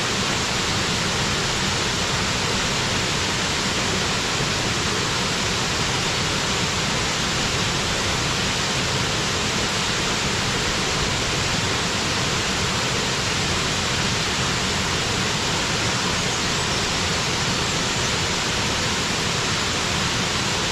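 Waterfall: water falling and splashing into its pool, a steady, even rush.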